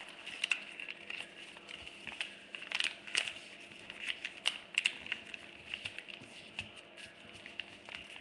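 Paper being folded and creased by hand: irregular crinkles, crackles and light rustling.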